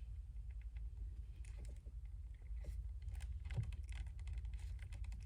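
A scatter of faint, irregular small clicks and snaps from a hand cutting tool working on a heavy-gauge shore power wire, over a steady low hum.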